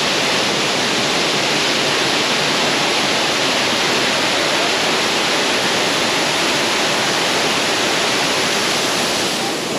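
Large waterfall crashing into its pool: a loud, steady rush of falling water.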